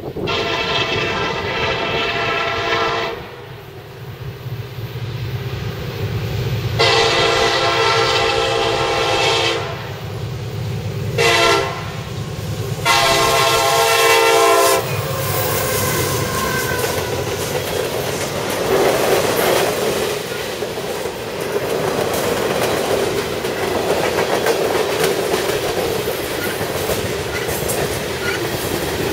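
CSX SD70MAC diesel locomotive's Nathan K-5LA air horn, loud, sounding the grade-crossing signal: two long blasts, a short one, then a final long one, over the rumble of the approaching locomotive. From about halfway through, the freight cars roll past with a steady clickety-clack of wheels over the rail joints.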